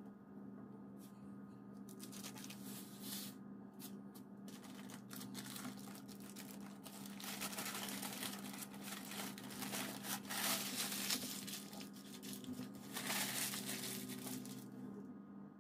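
Parchment paper crinkling and rustling in bursts as a sponge cake roll is rolled up tightly inside it and the paper ends are twisted, loudest in the middle and again near the end.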